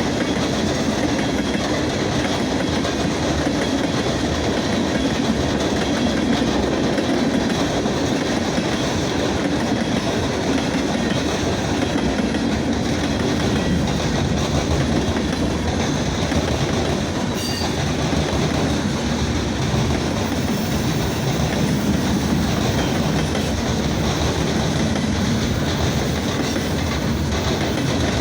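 Norfolk Southern freight train cars rolling past at close range, a steady rumble of steel wheels on the rails.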